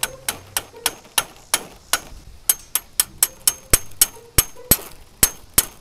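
A quick, slightly uneven run of sharp clicks, about four a second.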